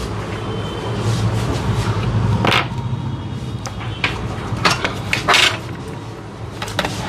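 A few sharp clinks and knocks of small hard tools being handled on a workbench, most of them bunched together about four to five and a half seconds in, over a steady low hum.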